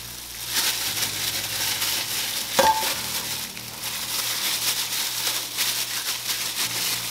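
Gloved hands scrubbing salted raw chicken drumsticks with a cut lime: a steady gritty, wet rubbing with the crinkle of thin plastic gloves.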